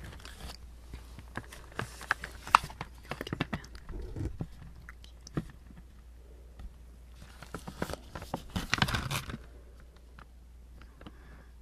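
Crinkly plastic candy bag rustling as it is handled close to the microphone, in several bursts, the loudest and longest about three-quarters of the way through.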